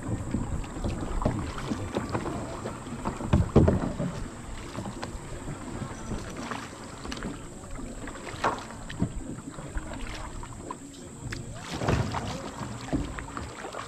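Canoe paddle strokes pulling and splashing through river water, an irregular stroke every few seconds, the loudest about three and a half seconds in and again near the end. Wind rumbles on the microphone underneath.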